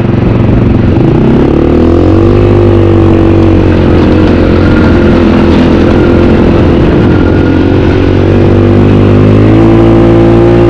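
IRBIS snowmobile engine running under throttle as it is ridden over slushy shore ice. Its pitch climbs about two seconds in, holds steady, and climbs again near the end.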